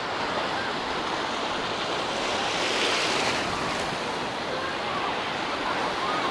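Sea surf washing onto the beach in wind, a steady rush of water with one louder wave breaking about two and a half to three and a half seconds in.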